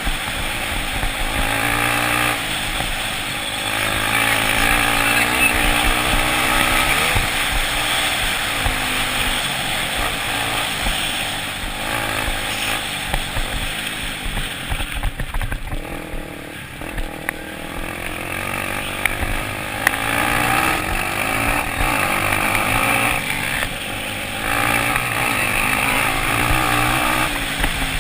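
Dirt bike engines revving hard and easing off in turn, pitch climbing and falling over and over, with a quieter stretch around the middle.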